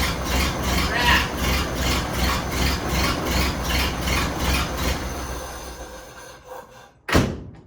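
1931 Ford Model A four-cylinder engine being started and running with an uneven beat of about three pulses a second, which the owner takes for a misfire, as if it were running on three cylinders. The sound fades away over the last couple of seconds, and a single sharp click comes near the end.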